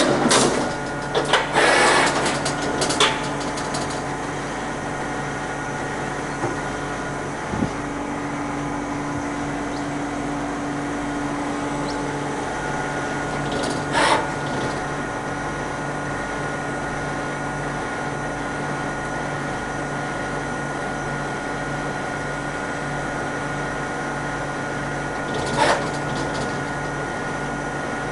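Kira KPC-30 CNC vertical machining centre running a program: a steady whine and hum from its spindle and drives. About a quarter of the way through, a tone sweeps in pitch and then holds steady for about five seconds, and short louder hissing bursts come in the first few seconds, about halfway and near the end.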